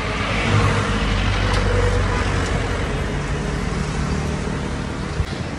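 Road traffic: a motor vehicle's engine hum and tyre rush passing close by on the highway, swelling in the first couple of seconds and then slowly fading.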